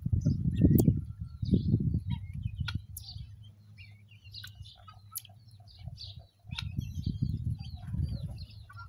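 Gusty low rumble of wind buffeting the microphone, easing off for a few seconds in the middle, over many short high chirps and twitters and a few sharp clicks.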